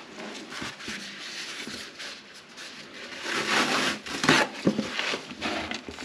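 Rustling handling noise with a few light knocks as cleanup of the floor around the toilet flange gets under way, a gloved hand taking hold of a paper towel near the end. The rustle swells loudest about three to four seconds in, followed by a couple of sharp knocks.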